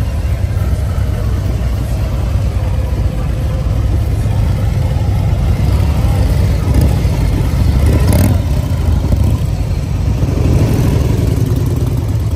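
Large touring motorcycle's engine running at idle with a steady deep rumble, a short loud burst about eight seconds in, and the engine pitch rising and falling near the end as it is revved.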